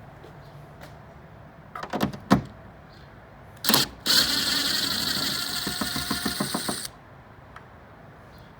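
Ratchet wrench with a 10 mm socket backing out a spoiler mounting bolt. A few sharp knocks come about two seconds in. Then, after a short burst near four seconds, there are about three seconds of fast, continuous ratchet clicking as the bolt is spun out.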